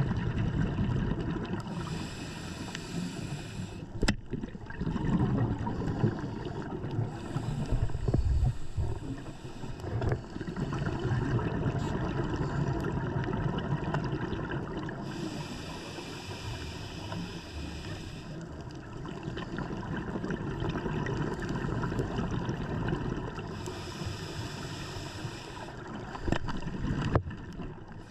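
Underwater sound from a scuba diver's camera: the rush of exhaled regulator bubbles comes in stretches of a few seconds, about every seven to eight seconds, over a steady muffled rumble of moving water. A few sharp clicks or knocks cut in, one of them loud near the end.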